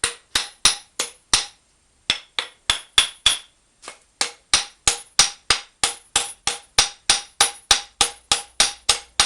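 Hammer tapping on a steering knuckle with a ball-joint puller tightened to its limit, to shock loose a ball joint that is stuck tight. Sharp ringing metal strikes, about three a second, with a brief pause about two seconds in.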